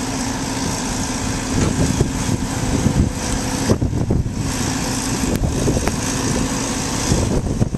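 Heavy construction equipment's diesel engine running, with a steady hum that stops a little before halfway and scattered knocks.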